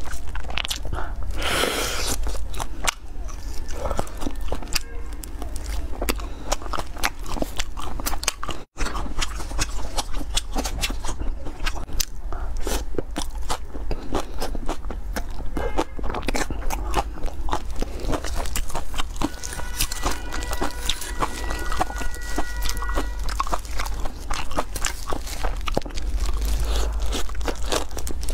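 Close-miked mouth sounds of a person eating spicy skewered seafood and enoki mushrooms: steady biting, crunching and wet chewing, with a brief break about nine seconds in.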